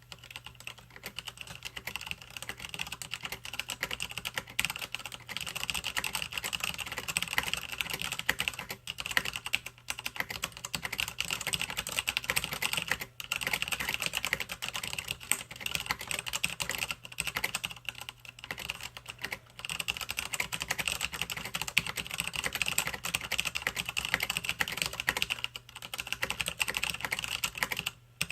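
Typing on a Cooler Master MasterKeys Pro S mechanical keyboard with Cherry MX Brown tactile switches. The keystrokes run as a continuous stream of key clacks, with a few brief pauses.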